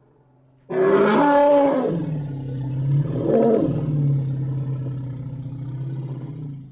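Elephant roar sound effect: a loud roar that starts abruptly about a second in and falls in pitch, then settles into a long low rumble with a brief rise in the middle, stopping near the end.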